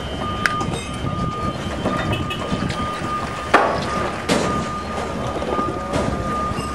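Forklift engine running as it moves over temporary floor mats, with a steady high tone throughout and two sharp metallic clanks, about three and a half and four and a quarter seconds in.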